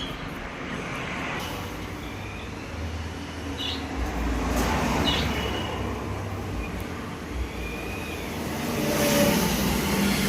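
Street traffic noise with a low rumble that swells about four seconds in, and a few short high chirps.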